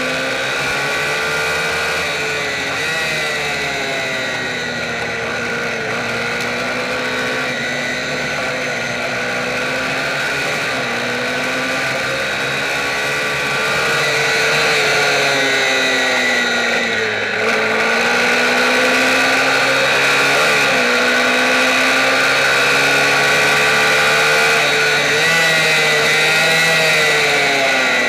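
Onboard sound of a small MiniGP racing motorcycle's engine at speed, the revs rising and falling again and again through the corners and gear changes. About two-thirds of the way through the pitch drops sharply as the bike slows for a corner, then climbs again.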